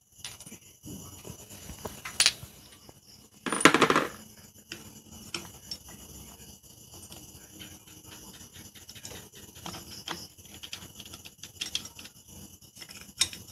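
Metal clutch parts of a Lifan 160cc motorcycle engine clicking and clattering as the clutch assembly is worked by hand onto its shaft: scattered light clicks, a sharp click about two seconds in, and a louder half-second clatter about three and a half seconds in.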